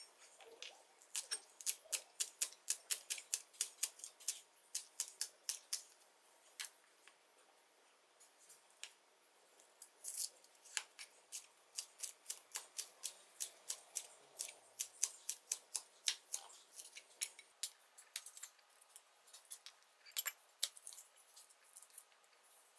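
Chef's knife chopping a green onion on a plastic cutting board: quick sharp taps of the blade on the board, about three to four a second, in two long runs with a short pause between and fewer taps near the end.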